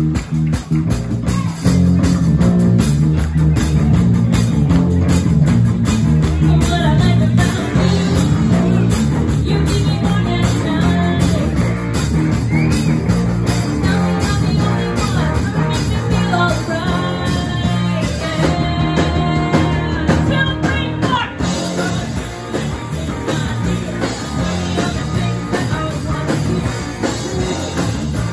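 Live rock band playing: a woman singing lead into a microphone over guitar and a drum kit with a steady beat.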